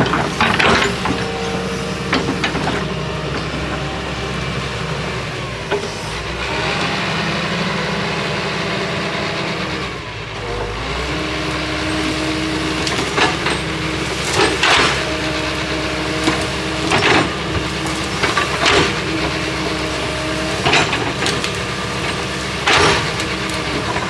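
Excavator engine running steadily with a hydraulic whine whose pitch shifts partway through. In the second half, a series of sharp cracks comes about every two seconds.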